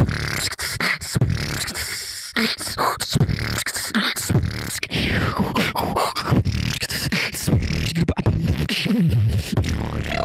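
Solo beatboxing: a fast run of vocal kick and snare hits over a low bass hum, with a few falling vocal sweeps in the middle.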